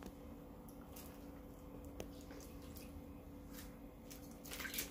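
Faint room tone: a steady low hum with a few soft isolated clicks, and light handling noises near the end.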